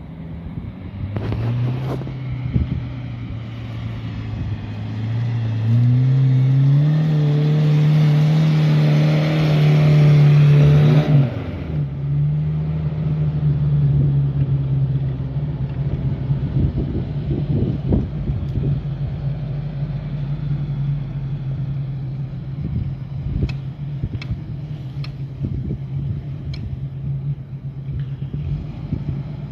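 Off-road 4x4 SUV engine revving under load on a steep climb. Its pitch steps up about a second in and again around six seconds, and it is loudest until about eleven seconds. Then it drops back to a steady, lower running note, with a few sharp clicks near the end.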